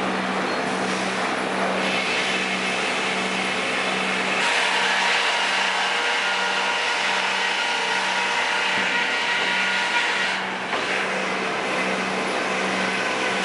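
Sawmill machinery running steadily, a loud even whir with a low hum that pulses about twice a second. It turns brighter and harsher about four seconds in.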